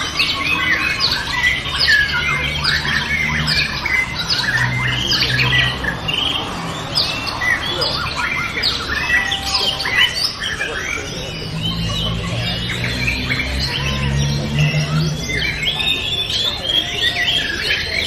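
A contest chorus of white-rumped shamas (murai batu) singing at once: dense, rapid, overlapping whistles and chirps with no let-up. A low murmur sits underneath at times.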